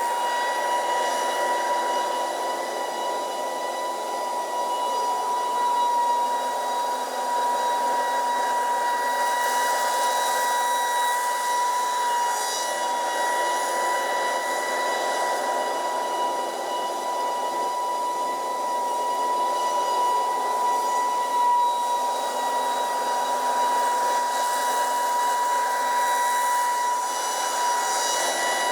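Scag Windstorm stand-on leaf blower running steadily at working speed: a constant high whine from its fan over the rush of blown air.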